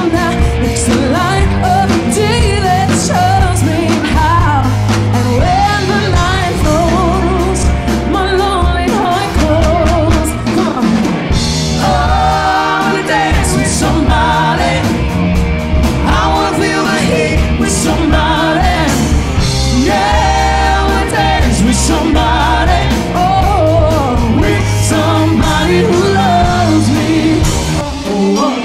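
Live pop-rock band playing, with drums, bass and guitars under sung vocals.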